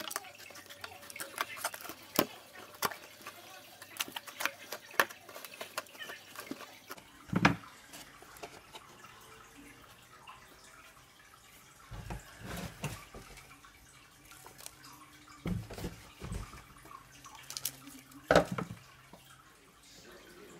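Potting soil, roots and a cut-down plastic jug being handled over a foil tray: small crackles and ticks at first, then several dull knocks and bumps of the plastic container, the loudest near the end.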